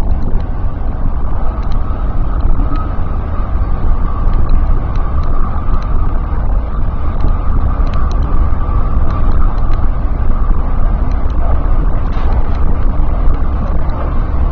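Seibu Ikebukuro Line electric train running at speed, heard from inside the front car: a steady rumble of wheels on rail with a faint steady whine and scattered light clicks.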